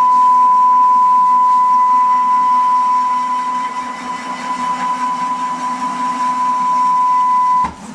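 Small CNC router's spindle motor running with a steady high-pitched whine, then switched off with a click shortly before the end, leaving the room much quieter.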